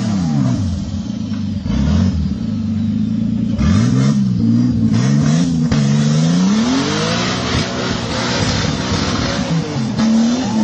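Off-road 4x4's engine revving hard, its pitch repeatedly climbing and dropping as the throttle is worked on and off.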